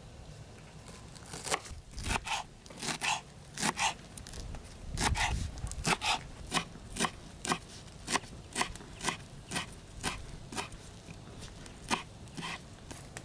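Footsteps crunching on the forest floor, about two steps a second.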